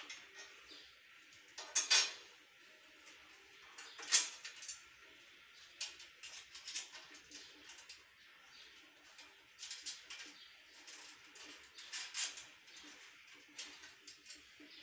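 Irregular clicks, clinks and scrapes of metal parts handled during the assembly of a shredder's steel frame, the loudest near 2 s and 4 s in.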